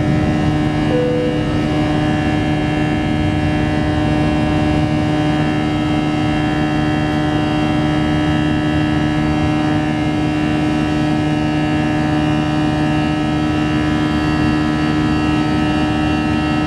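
Jet airliner engines at climb power, heard from inside the passenger cabin just after takeoff: a steady, loud drone with several constant whining tones over it.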